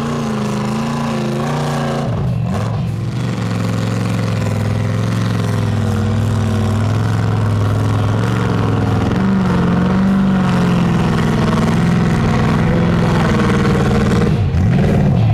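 Lifted Toyota pickup mud truck's engine running hard at high revs, its pitch wavering up and down as the big tires churn through deep mud. The sound is loud and continuous.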